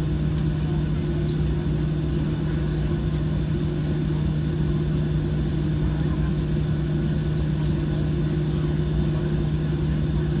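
Steady cabin drone inside a Boeing 737-700 taxiing with its CFM56-7B engines at idle, a constant low hum over a broad rushing noise.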